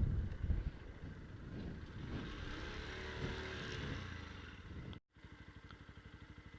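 Motorcycle ride heard through an SJ6 Legend action camera's microphone: loud wind rush on the microphone dies away in the first second, leaving a quieter steady vehicle rumble. After a brief dropout the engine is heard faintly with a quick, even putter.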